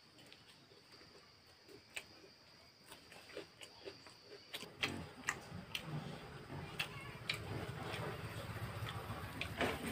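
Puffed rice (muri) crackling as it is mixed by hand on a banana leaf and crunched in chewing: sparse ticks at first, denser and louder from about halfway in.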